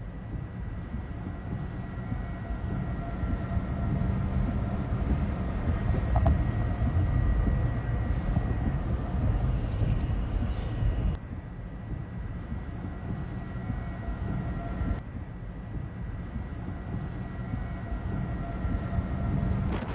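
Tornado roar: a deep, steady rumble like a freight train, with a faint steady high whine running through it. The rumble eases somewhat about halfway through.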